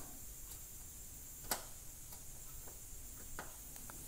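Faint scattered clicks as the probe tips of an LED backlight tester tap against the contacts of a TV's LED backlight strip, the sharpest about one and a half seconds in.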